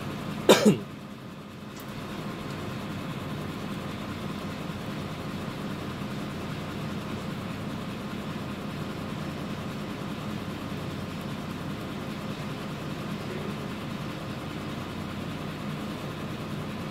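Truck engine idling steadily, heard from inside the cab. About half a second in there is a brief loud vocal sound.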